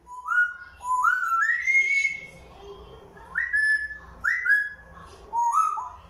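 African grey parrot whistling a run of clear rising notes: a string that climbs step by step over the first two seconds, then shorter upward-swooping whistles, the last pair near the end.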